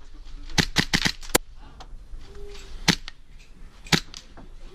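Tokyo Marui Hi-Capa 5.1 Gold Match gas blowback airsoft pistol firing: a quick string of about five shots in the first second and a half, then two single shots about a second apart.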